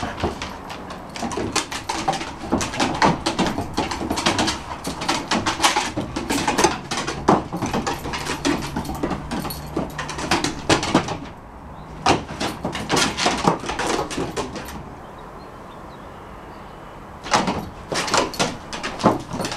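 A whippet and a kelpie cross playing rough on wooden decking: a dense, irregular clatter of claws and paws scrabbling and knocking on the boards. It pauses briefly twice, about 11 seconds in and again from about 15 to 17 seconds.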